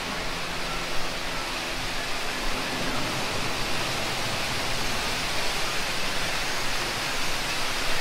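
Steady rushing noise of falling water in the ride's indoor rainforest scene, with a faint low hum that fades out about three seconds in.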